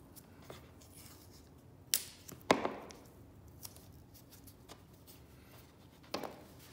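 Blue painter's tape being torn and pressed down over nuts on a melamine bed rail: quiet handling with a few sharp rips and snaps, the loudest about two and a half seconds in and another near the end.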